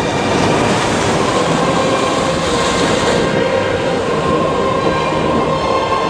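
Loud steady roar of storm wind and rough sea, with faint held tones running through it.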